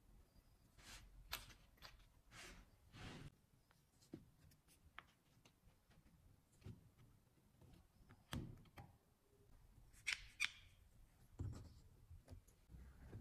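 Faint, scattered clicks, light taps and short scraping strokes from hand work on wood pieces.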